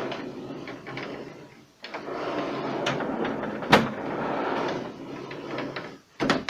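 Plastic refrigerator tray being slid in along its rails, a scraping rattle with a sharp click a little past halfway and a few more clicks near the end as it seats.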